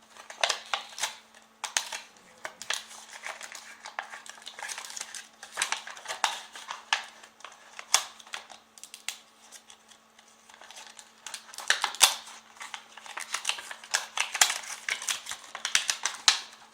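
Plastic packaging being handled and pried open: an irregular run of crinkles, clicks and snaps, with a faint steady hum underneath.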